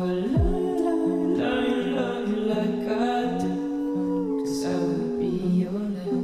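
Soundtrack music: held tones over a low note that pulses about every two-thirds of a second, with a short downward glide about a third of a second in.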